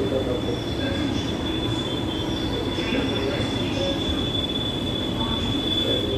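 Delhi Metro Pink Line train running, heard from inside the carriage: a steady low rumble with a thin, high-pitched squeal held at one pitch throughout.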